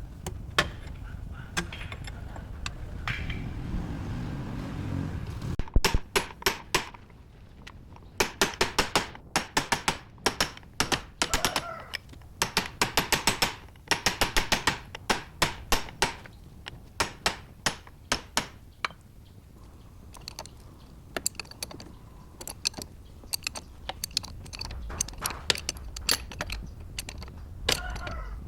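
Metal-on-metal striking: quick runs of sharp knocks, several a second, with sparser single knocks later.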